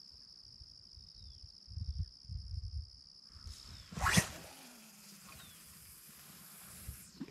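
Cast with a spinning rod: a sharp swish about four seconds in as the rod is swung, then a fine hiss of line paying off the reel for about three seconds that cuts off suddenly just before the end. A steady high insect drone runs underneath, with a few low bumps of handling before the cast.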